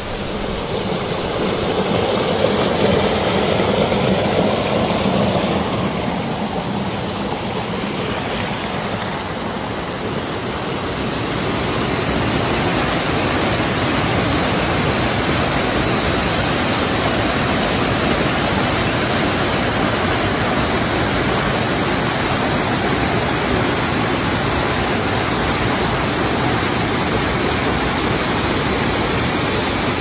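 Waterfall cascading over rock into a pool: a loud, steady rush of falling water, swelling in the first few seconds, then an even, fuller rush from about twelve seconds on.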